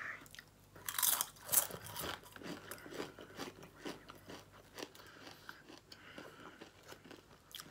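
A person biting into a crunchy crisp and chewing it with the mouth close to the microphone: two loud crunches about a second in, then many fainter crunches as the chewing goes on.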